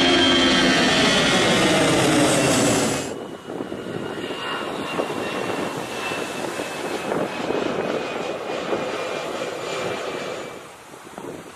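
Jet airliner climbing out low overhead after takeoff: loud jet engine noise whose pitch falls as it passes. About three seconds in it cuts abruptly to a quieter climb-out, where a faint high whine slowly drops in pitch and fades near the end.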